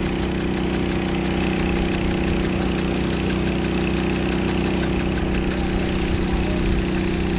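A vehicle engine idling steadily, with a fast, even high-pitched ticking of about five or six a second that quickens about five seconds in.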